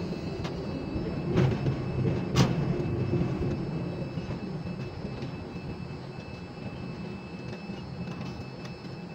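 Ship-to-shore container crane's hoist machinery running steadily as it lifts a container, with two sharp knocks about a second apart near the start. The machinery eases off slightly as the lift goes on.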